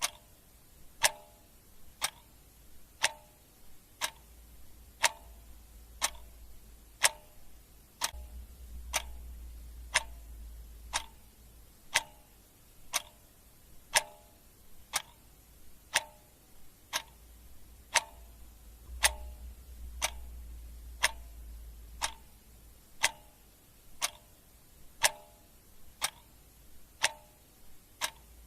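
Clock ticking steadily in a tick-tock rhythm, about two ticks a second, alternating louder and softer. A faint low hum underneath swells twice.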